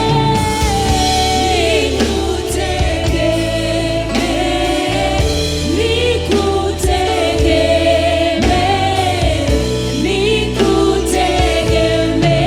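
Gospel worship song with a choir singing over a steady band backing.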